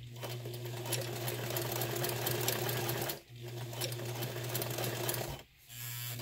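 Sewing machine stitching through vinyl in three short runs, stopping briefly about three seconds in and again near the end.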